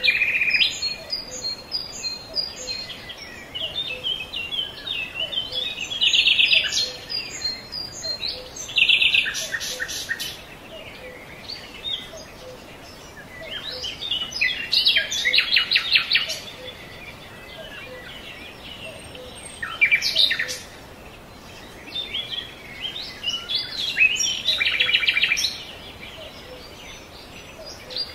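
Songbirds singing: bursts of high chirps and quick trills every few seconds, with short pauses between phrases.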